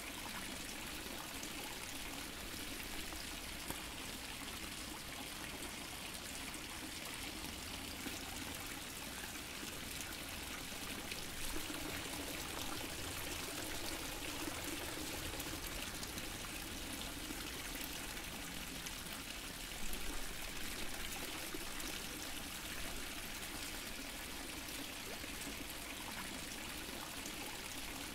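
Fountain water splashing and trickling steadily into a pool, with slightly louder splashes about twelve and twenty seconds in.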